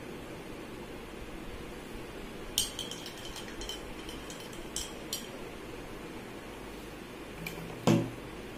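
A spoon clinking against a drinking glass while stirring: a quick run of light, ringing clinks for a couple of seconds. Near the end comes one heavier knock, something set down on the table.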